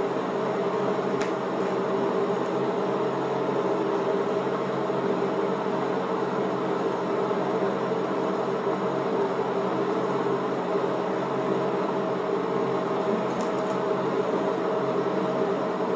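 Air conditioning unit running with a steady hum, with a couple of faint clicks over it.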